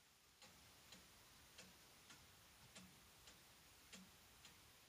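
Near silence with a faint, regular ticking, a little under two ticks a second.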